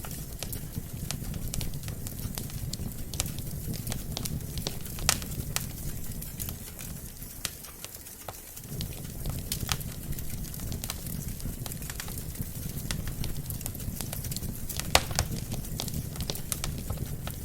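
Wood fire burning in a fireplace: a steady low rumble of flame with frequent small crackles and sharp pops. The two loudest pops come about five and fifteen seconds in.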